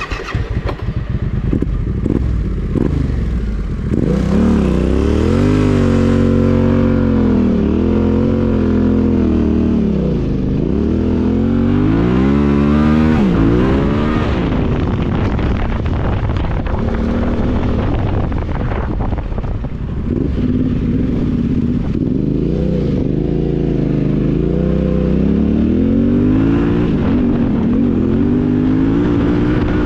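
Yamaha Ténéré 700's parallel-twin engine running under load, revs rising and falling over and over with the throttle. A deep drop in revs comes about thirteen seconds in, and the engine runs steadier after that.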